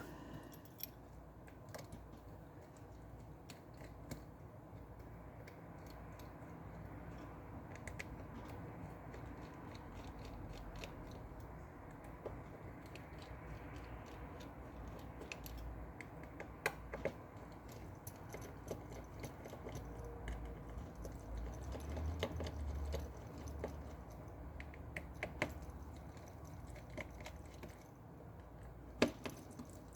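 Faint, scattered light clicks and taps of a small screwdriver and tools on a Samsung Galaxy S20 FE's internal frame as its screws are taken out, with a few sharper clicks now and then.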